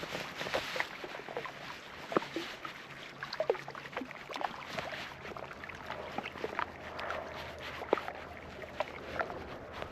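Water lapping, with small irregular splashes and slaps.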